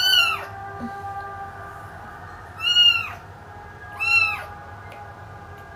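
Kitten meowing three times, short high-pitched calls that each rise and then fall in pitch.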